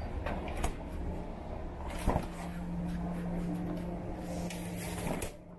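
Wet street ambience: a steady low mechanical hum under a hiss, with scattered light clicks and taps and one sharper click about two seconds in. The hiss falls away shortly before the end.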